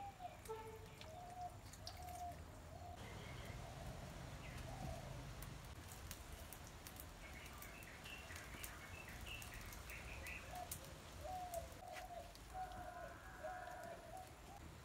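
Faint birdsong: a bird repeating short, low-pitched cooing calls, with another bird's higher chirps joining in near the middle. A few faint clicks are scattered through it.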